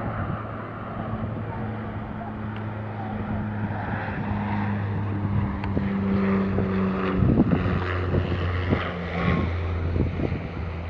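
Saab 340B turboprop airliner's propellers and engines droning with a steady low propeller hum during approach and landing. The sound grows louder in the second half as the aircraft comes closer, with wind buffeting the microphone.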